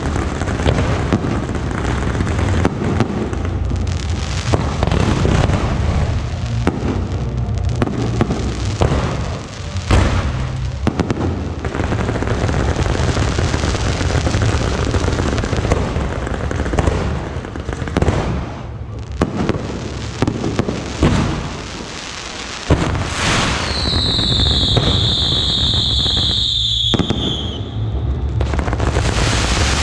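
Fireworks firing in a dense, continuous barrage of crackling bangs and booms. Near the end a long high whistle sounds for about three seconds, dropping slightly in pitch as it stops.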